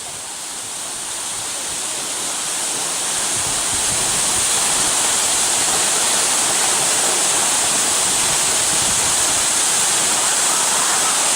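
Waterfall's falling water and spray rushing steadily, growing louder over the first few seconds and then holding level.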